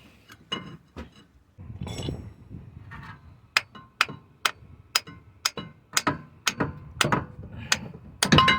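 Hammer blows on a seized brake caliper slide pin bolt, sharp ringing metal-on-metal strikes. A few scattered clanks come first, then about halfway in a steady run of about two strikes a second. The pin is stuck fast in its bore, dry of grease and rusted.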